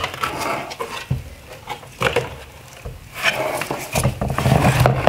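Plastic headlight housing parts being handled on a wooden workbench: scattered clicks and knocks as pieces bump together and are set down, busier near the end.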